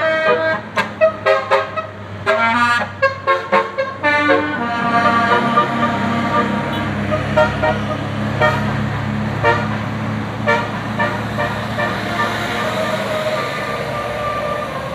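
A bus's 'telolet basuri' multi-tone musical horn tooting a quick tune of short, stepping notes. After about four seconds the notes thin out and the bus engine's steady hum comes forward, with scattered horn notes continuing over it.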